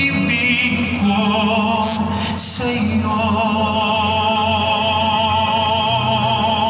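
A church hymn sung with strong vibrato, relayed over outdoor public-address loudspeakers: a few short phrases, then a long held note from about three seconds in.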